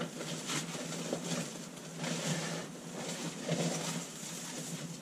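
Crumpled kraft packing paper rustling and crinkling as a coilover is pulled out of its cardboard box, in irregular bursts.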